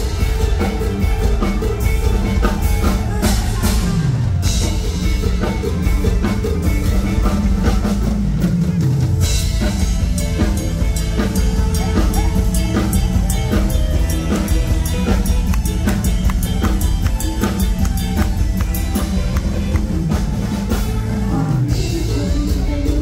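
Live band playing an instrumental break of a Thai luk thung song through a loud PA: drum kit keeping a steady beat, with electric bass and keyboards. A deep bass slide falls in pitch three times.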